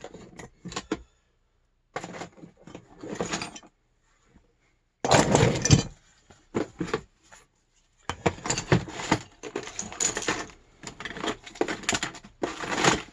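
Metal plumbing tools and fittings clattering and clinking as a toolbox is rummaged through, in several bursts with short pauses; the loudest clatter comes about five seconds in.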